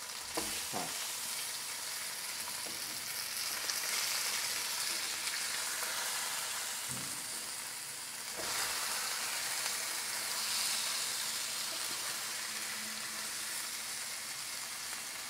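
Pearl spot fish frying in hot oil in a non-stick pan, a steady sizzle throughout, with a few soft knocks of a wooden spatula as the fish are turned over.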